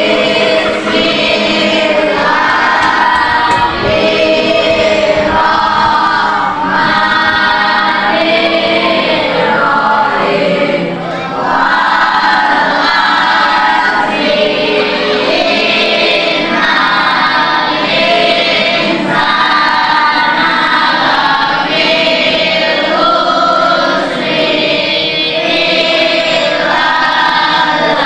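A class of young students singing their closing prayer together in unison, many voices at once.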